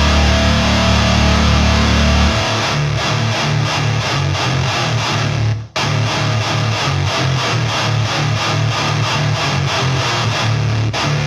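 Heavy metal music with distorted electric guitar and a driving, rhythmic low end, cutting out for a moment about halfway through.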